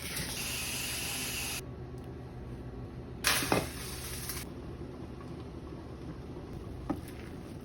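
Two short bursts of hissing, each a second or so long, starting and stopping abruptly, with a faint click near the end.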